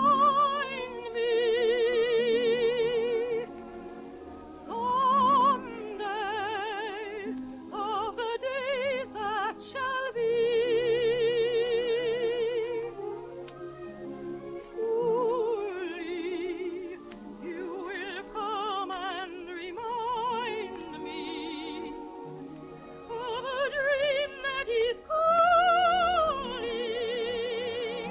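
A soprano sings an operetta song in full operatic voice, with wide vibrato on long held notes and an accompaniment beneath.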